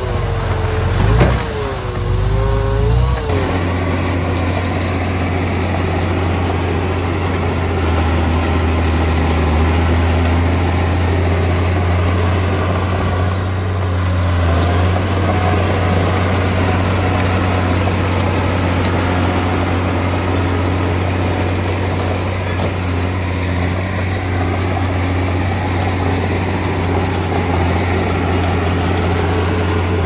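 Heavy construction machine's diesel engine working: its pitch rises and falls for the first three seconds or so, then settles into a steady, loud drone under load.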